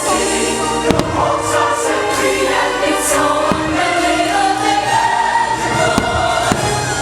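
Fireworks show music with a choir singing, while firework shells burst several times.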